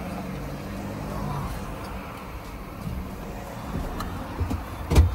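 Steady low vehicle rumble, with a small click about four seconds in and a sharper knock near the end.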